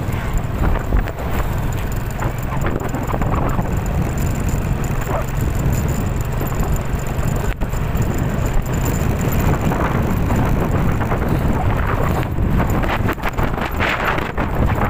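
Typhoon wind buffeting the microphone in a steady, loud rush, with a few rattles and knocks near the end.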